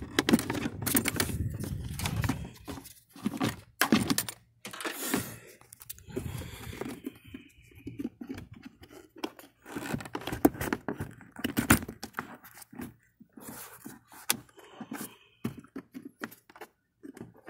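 Hard plastic clicks, knocks and scrapes as a car's air filter and plastic airbox cover are worked into place by hand, coming at irregular intervals. The cover's tabs are not seating.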